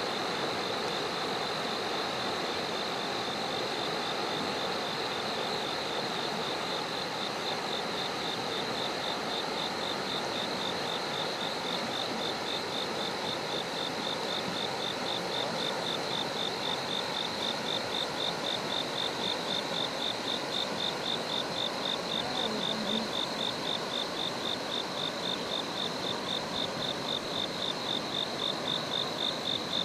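Insects calling in a continuous chorus: a steady high buzzing that pulses rhythmically, more plainly in the second half. Under it runs a steady rushing background.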